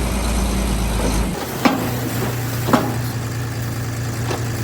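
Tipper lorry's engine running while it dumps its load of dirt and rock; the engine note changes about a second in, and two sharp clanks come about a second apart.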